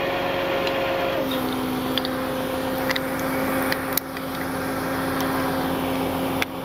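Tow truck's engine running with its hydraulic pump engaged, giving a steady whine whose pitch shifts slightly about a second in, with a few light metallic clicks from the winch gear.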